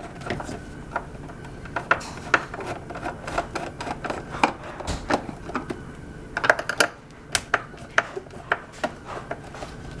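Irregular clicks and light knocks of a hoverboard's plastic shell and a screwdriver being handled during disassembly, with a quick run of clicks about six and a half seconds in.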